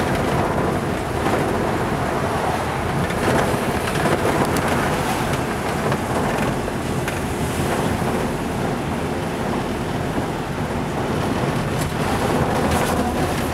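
Steady road and engine noise inside a moving minibus, an even rumble with no let-up.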